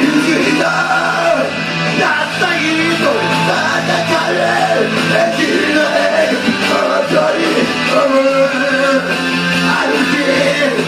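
A rock song with a singing voice over the instruments.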